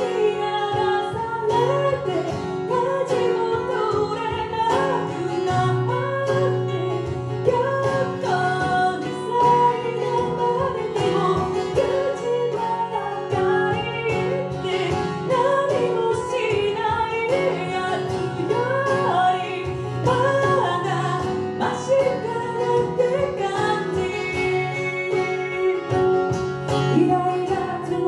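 A woman singing a Japanese song to her own Lowden F-23 acoustic guitar, with layered parts from a Boss RC-300 loop station playing under the live vocal and guitar.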